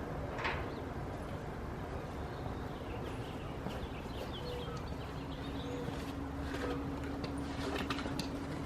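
Steady outdoor background rumble with a few faint clicks and knocks from tripod clamp and mounting parts being handled.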